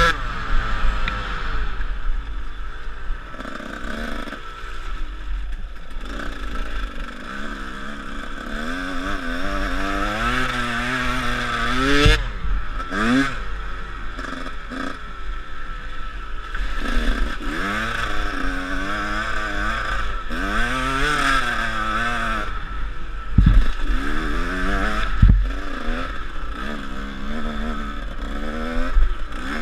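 150cc off-road dirt bike engine being ridden hard, revving up and dropping off again and again through the gears. Several sharp knocks cut through, the loudest about 12, 23 and 25 seconds in.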